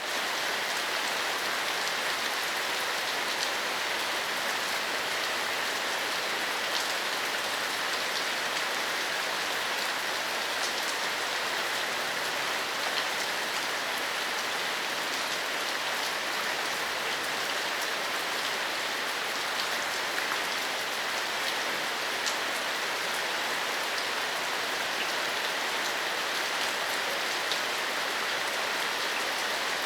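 Steady medium-intensity rain falling on pavement: an even hiss with scattered individual drop ticks.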